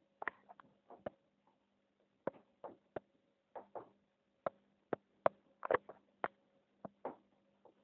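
Washing machine drum turning a load of laundry: an irregular run of light clicks and knocks, about three a second, over a faint steady motor hum.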